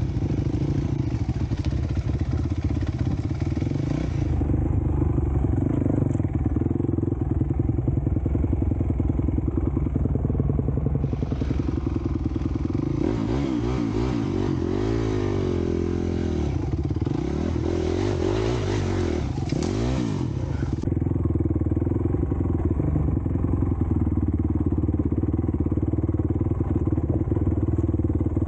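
Honda CRF250X dirt bike's single-cylinder four-stroke engine running on a trail ride, steady at first, then revving up and down between about 12 and 21 seconds in before settling back to a steady pull.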